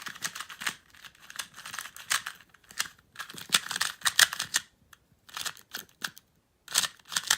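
Wuxia Magnetic 2x2 speedcube being turned rapidly by hand, its plastic layers clicking and clacking in quick bursts with a pause in the middle. The dry, scratchy clack is the sign of an unlubricated cube.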